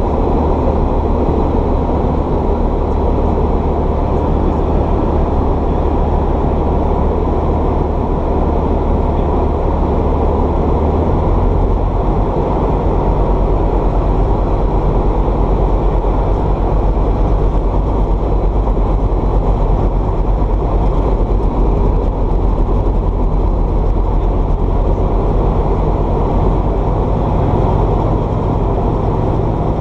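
Light aircraft's piston engine and propeller running steadily, heard inside the cabin; the low engine note shifts about eleven seconds in.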